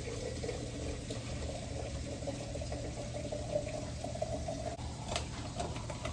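A kitchen tap running steadily into a sink, with a brief click a little past five seconds.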